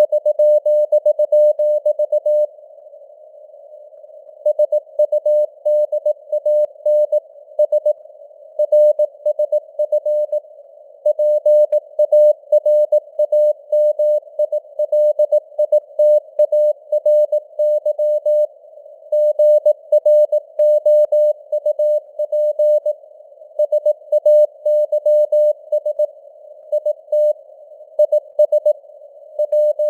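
Morse code (CW) at 18 words per minute: a single mid-pitched sidetone keyed into dots and dashes over a narrow band of simulated radio hiss, the signal strength fading up and down. There is a pause of about two seconds near the start.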